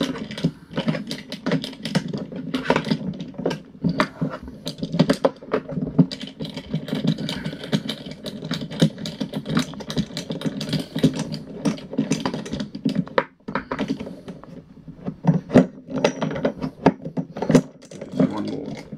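Irregular clicking, tapping and rattling of lawnmower handle parts being pushed and fitted together by hand during assembly.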